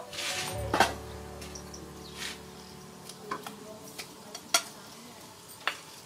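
Several sharp clinks of a metal spoon against a dish over a large aluminium pot of hot water, with a soft steady hiss from the steaming pot underneath.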